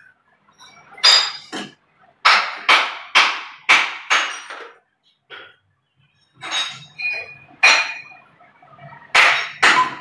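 Hard plastic PVC pipe and fittings knocking and clinking as they are handled and pushed together, about a dozen sharp knocks, some with a brief ring. They come in a quick run in the first half, then more spaced out.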